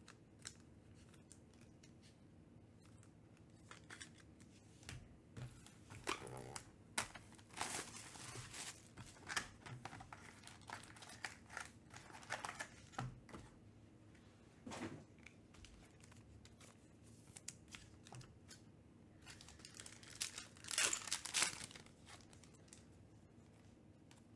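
Foil wrappers of Panini Select UFC trading-card packs being torn open and crinkled, with cards handled, in short scattered bursts of rustling and tearing; the loudest burst comes about 21 seconds in.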